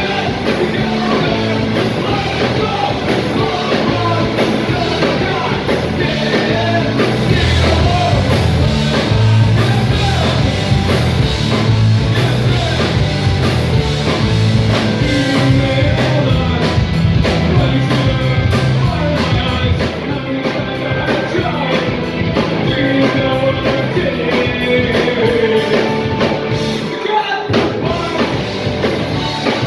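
Live rock band playing a song at full volume, with electric guitar, bass, drums and a singer. Cymbal hits grow denser in the second half.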